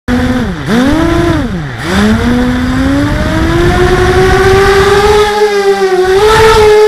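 Brushless motors and 5-inch propellers of a 260-size FPV quadcopter whining as the throttle is worked on the ground, over a rush of air. The pitch drops sharply twice in the first two seconds, then climbs steadily and holds high.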